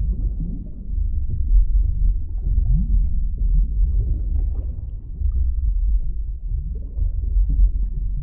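Underwater ambience sound effect: a steady, muffled low rumble with scattered gurgling and short rising tones, as heard under water.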